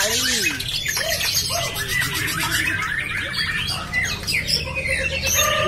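Several caged songbirds singing at once, dense overlapping chirps, trills and arching whistles, with a young white-rumped shama (murai batu) singing among them. A low steady hum lies underneath.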